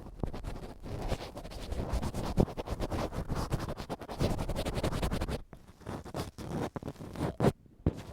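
Ear pick scraping and scratching close against the microphone in ear-cleaning ASMR. The rough, crackly scratching is dense for about five seconds, then thins to separate scrapes and clicks, with one louder click near the end.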